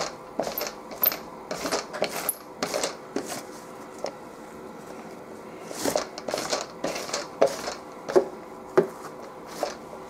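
Sticky lint roller rolled back and forth over a polyester waffle-weave tea towel, rasping in a quick series of short strokes. There is a pause of about two seconds in the middle.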